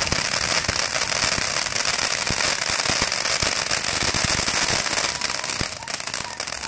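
Consumer finale firework cake crackling: a dense shower of rapid crackling pops with occasional louder bangs, thinning out and dying away near the end as it burns out.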